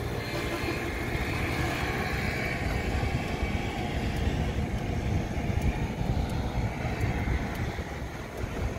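Uneven rumble of wind on the microphone and road noise from a bicycle being ridden, with traffic noise from the road behind it.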